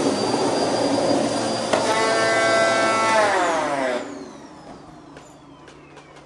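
Upright vacuum cleaner running with a loud rush of air, then switched off: a click about two seconds in, a whine that sinks in pitch, and the noise dropping away about four seconds in, leaving a faint falling whine as the motor spins down.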